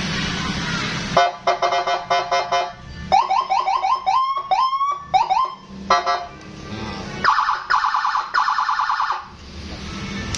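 Custom electronic patwal (escort) siren, starting about a second in and cycling through its tones: rapid pulsed beeps, then a run of quick rising whoops, then fast pulsing tones.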